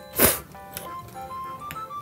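One short slurp of soba noodles about a fifth of a second in, then light background music.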